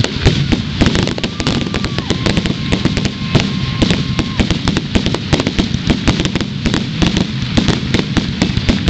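Fireworks display going off as a dense, continuous barrage: rapid bangs, pops and crackling one on top of another with no let-up.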